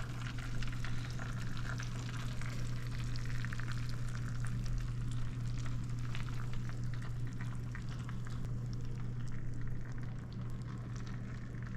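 Bacon-wrapped jalapenos sizzling and crackling on a hot baking tray fresh from the oven, a steady dense crackle of rendering bacon fat, with a constant low hum underneath.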